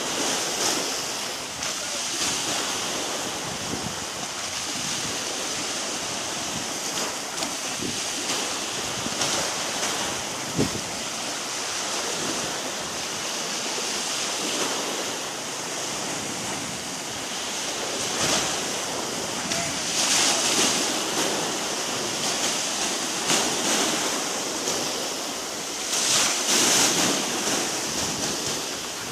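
Small waves washing onto a sandy shore, a steady surf hiss that swells louder several times as waves break, loudest near the end.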